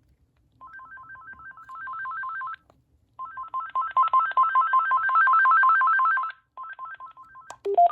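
The ringer of an AT&T (VTech) E2801 2.4 GHz cordless handset plays its classic ringtone, a fast warble between two tones. It comes in three spells at different volumes, quieter at first, loudest in the middle and quieter again, as the ringer volume setting is stepped. A couple of short key beeps follow near the end.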